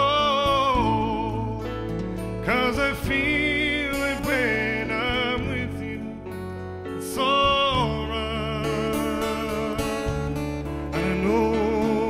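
Live band performance: a male lead vocal singing long, held notes with vibrato over strummed acoustic guitars and a steady low accompaniment.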